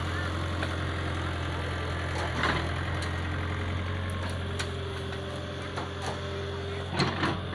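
Komatsu mini excavator's diesel engine running steadily as the boom and bucket swing, with a few knocks and clacks, the loudest about two and a half seconds in and just before the end, and a faint steady whine for about two seconds past the middle.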